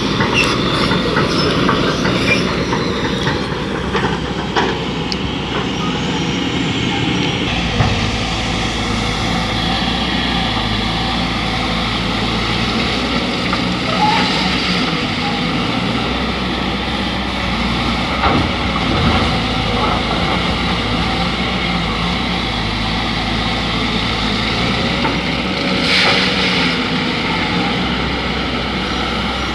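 Diesel engine of a hydraulic excavator running steadily while it works, with a few sharp knocks scattered through.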